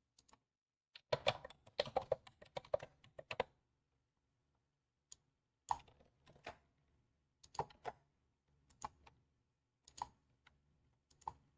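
Keystrokes on a computer keyboard: a quick run of typing in the first few seconds, then scattered single keystrokes after a short pause.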